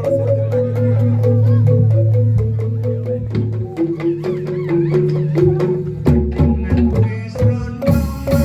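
Traditional-style music: a melody moving in steps over a sustained low tone, with hand-drum strokes that grow busier about six seconds in.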